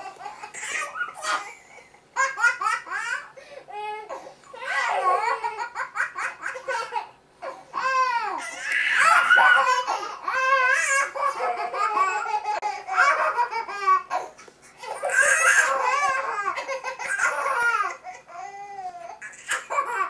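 Two two-year-old toddlers laughing hysterically together, high-pitched, in repeated fits that break off briefly and start up again.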